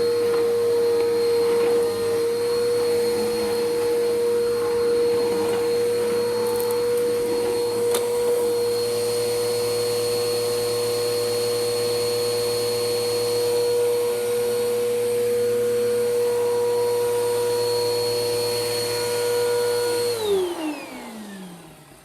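Bissell Powerforce Helix 1240 upright vacuum running steadily with a high motor whine, grit crackling into it now and then on concrete. About twenty seconds in it is switched off and its pitch falls as the motor winds down.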